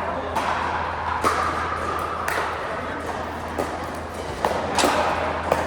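Pickleball rally: paddles hitting the plastic ball with a series of sharp pops, roughly a second apart.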